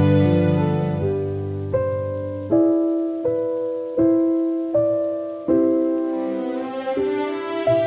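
Slow, gentle piano music: single notes and chords struck about every three-quarters of a second and left to ring and fade.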